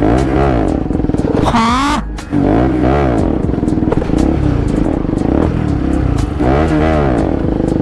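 Bajaj Pulsar RS200 single-cylinder engine through a loud exhaust, revved up and dropped back several times while riding, the pitch rising and falling in repeated surges.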